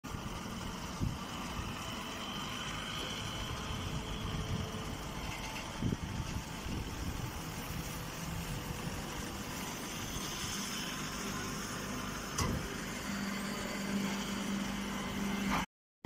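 Hay baler machinery running with a steady mechanical hum and a few short knocks; a low steady hum comes in near the end before the sound cuts off suddenly.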